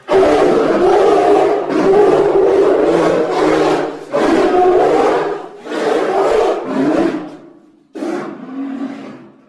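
Animated character's voice: a string of five loud, drawn-out vocal cries, each one to two seconds long with short breaks between them, the last one fainter.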